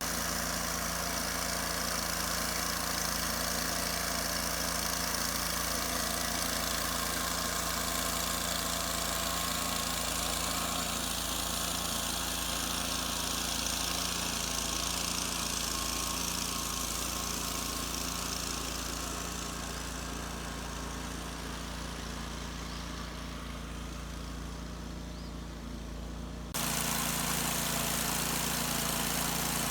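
An engine running steadily at an even speed. A few seconds before the end the sound changes abruptly to a slightly louder, steady engine hum.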